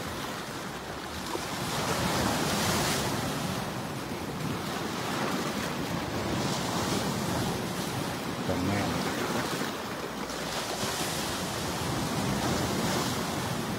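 Ocean surf breaking and washing up on a sandy beach, swelling and easing every few seconds.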